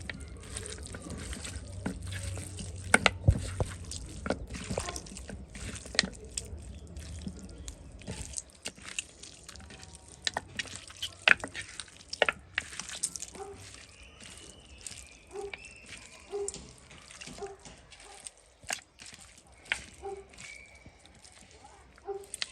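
Water splashing and dripping with many sharp clicks and knocks. It is denser, over a low rumble, for roughly the first eight seconds, then thins to scattered drips and clicks, with a few faint short pitched calls in the second half.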